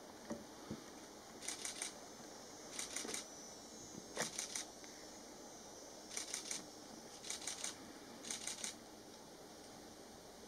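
Camera shutter firing in quick bursts of three frames, six bursts over about seven seconds.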